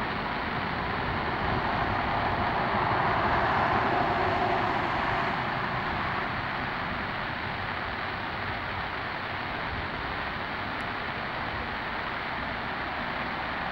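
Airbus A340-600's four Rolls-Royce Trent 500 turbofans on final approach, a steady jet engine noise that swells a little about three to five seconds in.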